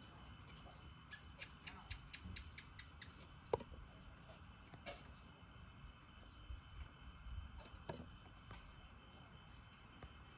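Faint steady chirring of crickets, with light clicks and knocks from young bamboo shoots being handled over a metal basin. There is a quick run of clicks about one to three seconds in, and the sharpest knock comes at about three and a half seconds.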